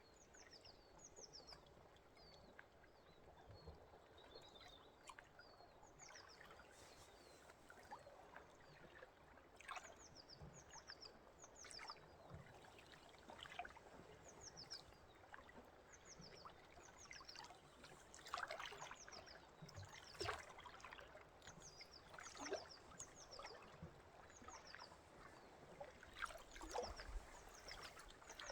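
Faint trickling stream with small birds chirping, their short high chirps coming in quick runs, and a few louder calls in the second half.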